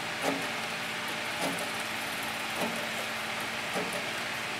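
CowBoy CB3500 compound-feed walking-foot leather sewing machine slowly stitching through two layers of 15-ounce skirting leather at its slowest servo speed. Each stitch gives a knock, four of them a little over a second apart, over a steady hum.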